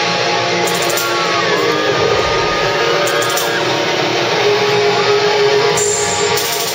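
Live heavy rock band playing loud, with electric guitars and drums filling the hall, heard from within the crowd; a few sliding notes rise and fall in the middle.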